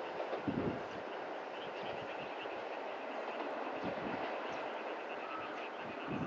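Steady outdoor background noise with a fast chirping call repeating about five times a second, and a few soft low thumps.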